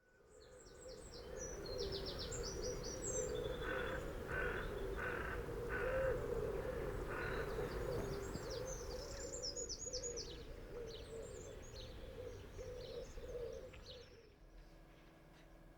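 Outdoor birdsong: many small birds chirping, with a crow cawing about six times in a row, over a low wavering sound. It fades in at the start and dies down near the end.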